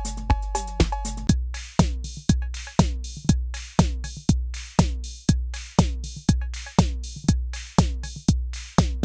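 Electronic drum machine playing a programmed beat. About a second in, a pattern with a steady two-tone ring gives way to a different beat, with a deep kick about twice a second and hits that drop in pitch.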